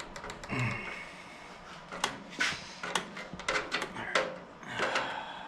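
Hand tools and small metal parts clinking, knocking and scraping during work on a tractor carburetor's throttle linkage: a run of irregular sharp knocks, with a couple of longer scrapes.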